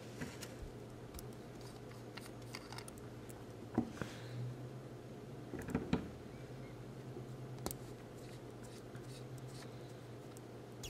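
Handling noise from a Visconti Ripple fountain pen: scattered small clicks and rubs of fingers on its metal barrel while the cap is taken off, with a couple of louder taps about four and six seconds in. A low steady hum lies underneath.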